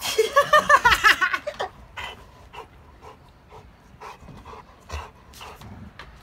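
Old English Sheepdog making a quick run of high, whining play-grumbles for about a second and a half while tugging on a toy, then quieter short panting sounds.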